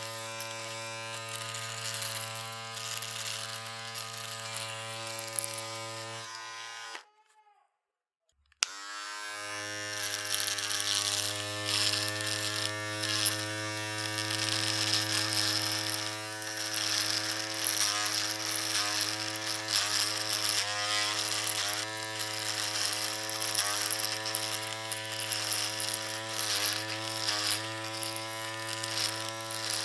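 Electric shaver buzzing steadily, then switched off about seven seconds in so that its pitch sinks as it winds down. After about a second and a half of quiet it is switched back on with a click and buzzes again, its pitch wavering.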